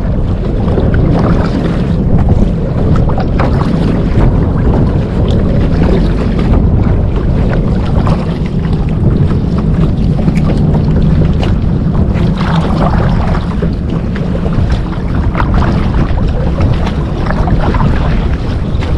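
Wind buffeting the microphone over water sloshing and splashing around a paddle kayak as it is paddled.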